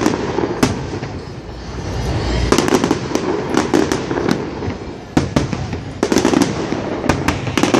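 Aerial fireworks shells bursting in quick succession: clusters of sharp bangs and cracks, with a deeper boom about two seconds in.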